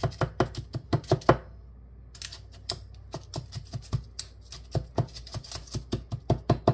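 Meat grinder's food pusher tapping graham-cracker crumbs down into paper liners in a metal muffin pan, packing the crust firm: a quick run of light knocks, a brief pause about a second and a half in, then more knocks at an uneven pace.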